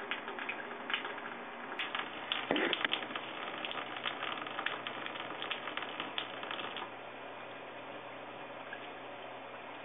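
Bathtub tap running in a thin stream, with quick irregular splashy clicks as a cat drinks from the stream; the clicks die away about seven seconds in, leaving the steady running water.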